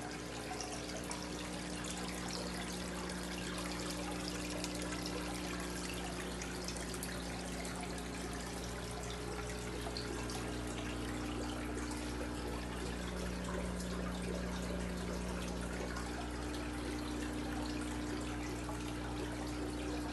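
Aquarium filter water trickling and splashing steadily, over a steady low hum.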